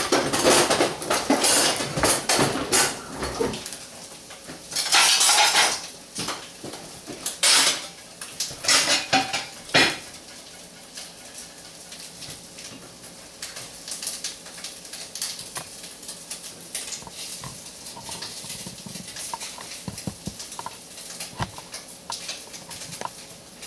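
Cooking utensils and pans clattering during plating: several loud clanks and scrapes in the first ten seconds, then quieter with occasional light clicks.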